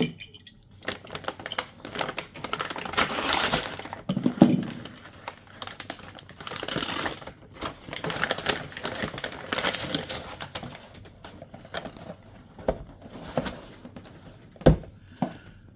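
Packaging being handled and opened by hand: crinkling and rustling, with several longer sweeps about a second each and scattered clicks and knocks.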